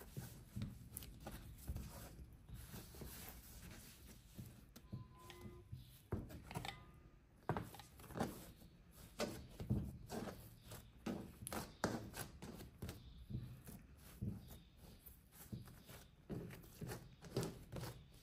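Soft yeast bun dough being kneaded, pressed and rolled by hand on a work surface: faint, irregular soft thumps and pats, several a second.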